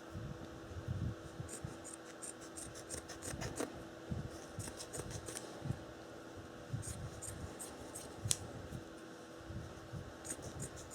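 Leatherman Raptor trauma shears cutting through a thick cotton t-shirt: several runs of quick, crisp snips with short pauses between them, cutting easily and smoothly.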